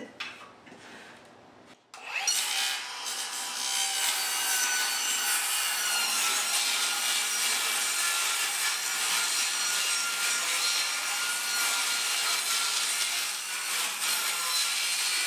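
Circular saw cutting through plywood. It starts about two seconds in, runs steadily with a high motor whine over the noise of the cut, and stops near the end.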